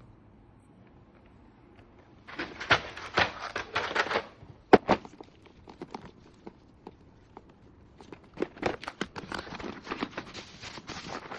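Typing on a mechanical keyboard fitted with keycaps: a run of rapid key clacks starting about two seconds in, two louder single clacks, then scattered clacks, and fast clacking again from about eight seconds.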